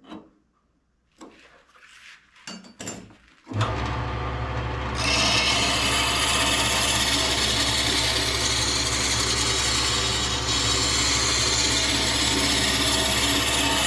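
A few light clicks and knocks, then about three and a half seconds in a woodworking power tool's motor starts and runs steadily with a low hum. About a second later a loud, even hiss joins it, as the tool works wood.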